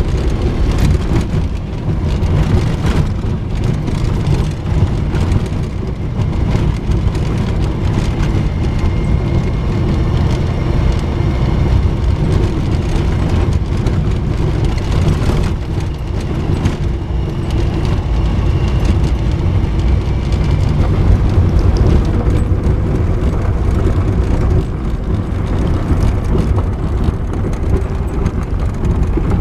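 Jeep driving over a dirt desert track, heard from inside the cab: a steady engine and tyre rumble, with scattered knocks and rattles as it goes over bumps.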